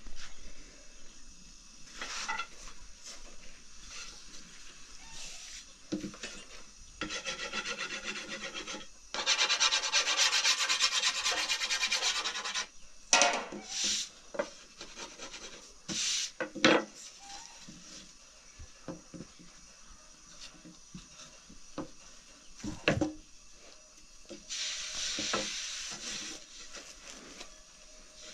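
Rubbing and rasping scrapes in stretches of a few seconds, the longest a run of fast, even strokes about a third of the way in, with a few sharp knocks between.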